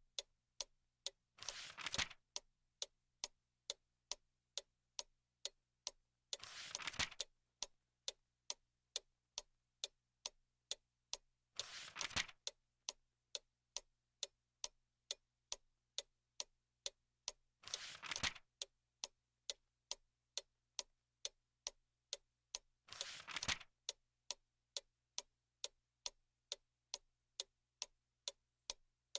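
A clock ticking steadily about twice a second. A book page is turned with a short paper rustle roughly every five to six seconds.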